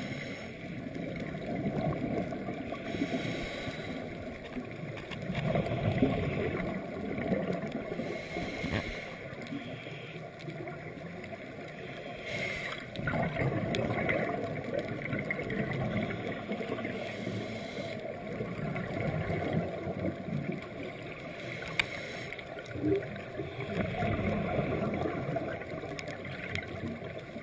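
Muffled underwater bubbling of scuba divers' exhaled air from their regulators, heard through a GoPro's waterproof housing, swelling and fading every few seconds.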